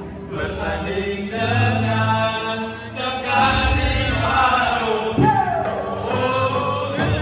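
Small acoustic student band playing: voices singing together over strummed acoustic guitars, with cajón and hand-drum beats coming in about three seconds in.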